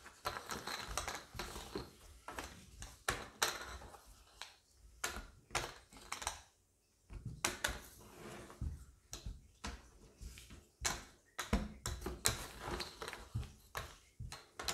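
Cardboard game tokens being flipped over and shuffled about on a wooden tabletop, turned face up for scoring: irregular light clicks and taps, dying away briefly about seven seconds in.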